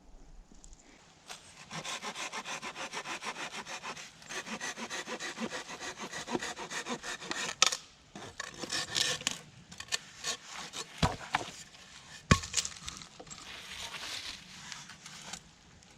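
A hand saw cutting through tulip poplar wood with quick, even back-and-forth strokes, about five or six a second. This is followed by irregular scraping and a few sharp cracks as the wood is worked.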